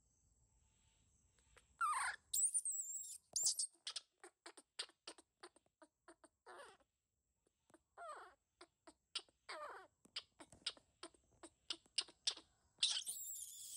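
Baby macaque crying: a falling squeal, then a run of short high cries at about three or four a second, broken by longer falling cries, and a shrill screech near the end.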